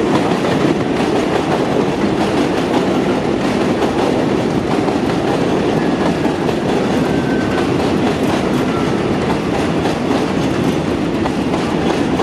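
New York City Subway R62 train cars rolling past on elevated steel track: a steady, loud rumble with wheels clacking over the rail joints.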